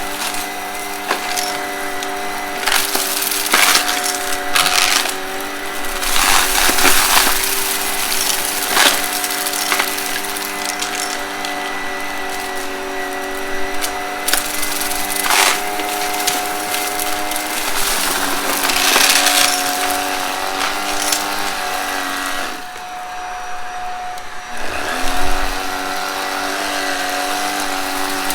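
Vacuum cleaner motor running with a steady whine while it sucks up dry, crunchy debris from carpet, which crackles and snaps in many sharp bursts. The motor sound drops briefly about three-quarters of the way through, then comes back.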